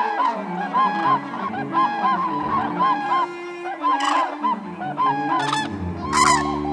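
A flock of common cranes calling: many short, overlapping trumpeting notes that rise and fall, from several birds at once, with the loudest call about six seconds in.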